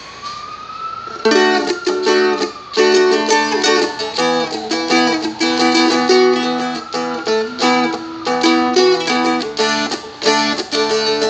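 Seagull Merlin, a four-string strumstick, strummed in a steady rhythm of chords, moving between D and E chord shapes. The strumming starts about a second in.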